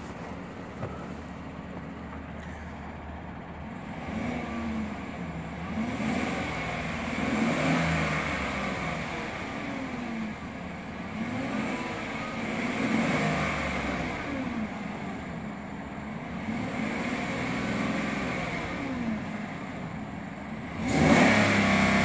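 5.3-liter V8 of a 2014 GMC Sierra SLT idling, then revved over and over in park, heard from inside the cab: about a dozen short blips that rise and fall in pitch, roughly one every second and a half. Near the end comes a louder, higher rev, close to 4,000 rpm.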